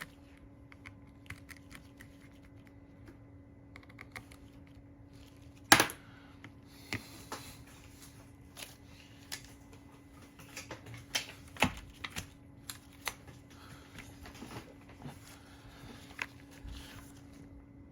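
Small irregular clicks and ticks of a precision screwdriver tightening tiny screws on an iPhone's internal retaining plate, with a sharper click about six seconds in and another about twelve seconds in. A faint steady hum runs underneath.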